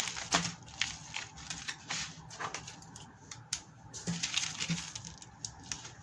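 Plastic packaging crinkling, with scattered light clicks and taps, as small parts are unwrapped by hand.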